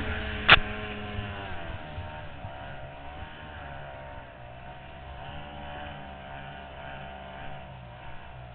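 Outboard racing boat engines running, their pitch wavering, with one sharp knock about half a second in. After the knock the engine sound drops and then stays fairly steady.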